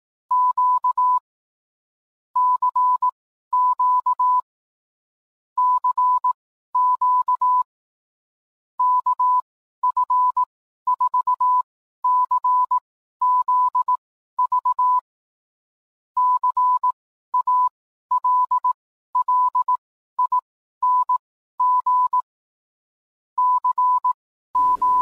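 Morse code sent as a steady tone of about 1 kHz, keyed on and off in short and long elements with clean silent gaps between letters.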